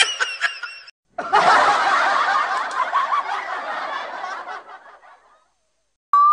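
Laughter sound effects: a short snicker cuts off, then after a brief gap a crowd laughs and fades out over about four seconds. Right at the end a wobbly, warbling boing tone starts.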